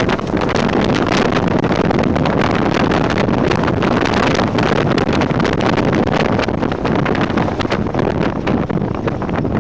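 Wind rushing over an outside microphone on a Jeep CJ7 driving along a dirt trail, with tyre and road noise from the dirt surface and frequent short crackles.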